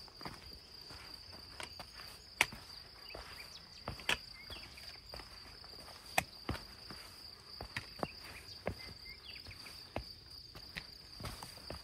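Footsteps crunching down a rocky dirt trail, with sharp taps from a trekking pole striking the ground every second or two. Under them runs a steady high-pitched insect drone.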